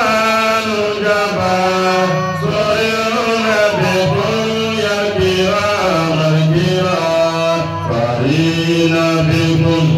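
A man singing a qasida, an Islamic devotional poem, in a chanted, melismatic style, with long held notes that slide up and down in pitch.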